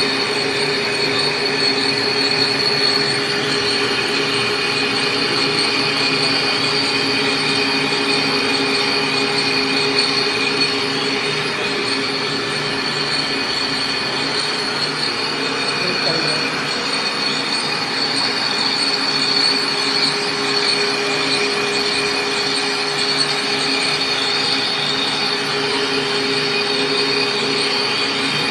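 Machinery running steadily with a continuous high-pitched squeal that holds the same pitch throughout.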